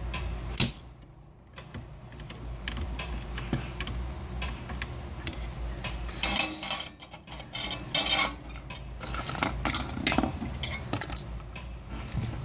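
Spring-loaded desoldering pump snapping once, sharply, about half a second in as it sucks solder off the amplifier's circuit board. It is followed by scattered clicks and clinks of tools and parts being handled, busiest in the second half, over a steady low hum.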